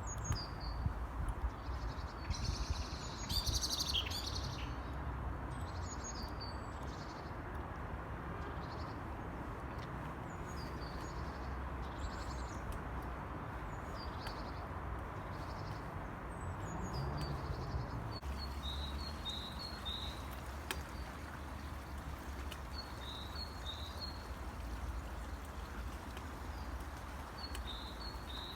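Small wild birds chirping, short high falling calls every second or two, some in quick runs of three, over a steady low rumble.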